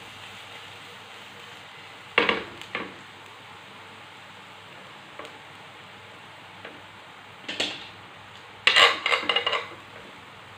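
Chopped garlic and onion sizzling in a ridged grill pan, with a utensil clattering and scraping against the pan as they are stirred. There is a clatter about two seconds in, and a busier run of knocks and scrapes near the end.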